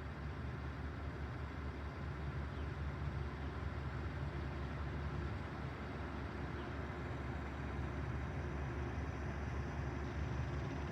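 Marine diesel engine running with a steady low drone, holding one even pitch.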